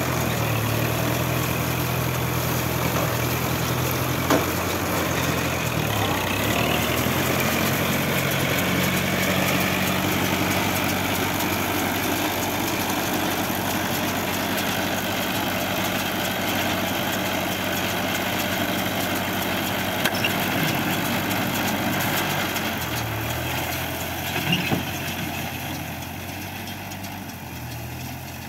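Farm tractor's diesel engine running steadily as it tows and drives an Aambal mini round baler baling rice straw. The engine note shifts a couple of times, a few sharp clicks sound over it, and it fades over the last few seconds as the tractor moves off.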